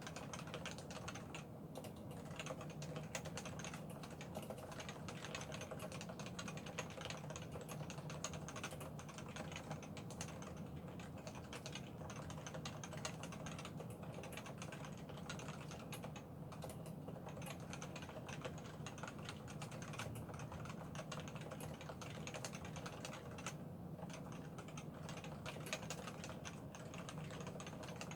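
Continuous fast typing on a Realforce 87U tenkeyless keyboard with 45 g Topre electrostatic capacitive switches, stock unlubricated sliders and PBT dye-sublimated keycaps, with Krytox 205-lubed stabilizers. The keystrokes come as a dense, irregular stream of soft clicks.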